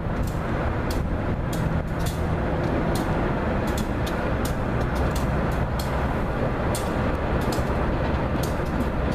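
Diesel locomotive rumble from a slow-moving Amtrak GP15D switcher and its trailing GP38-3, with short sharp high clicks scattered throughout.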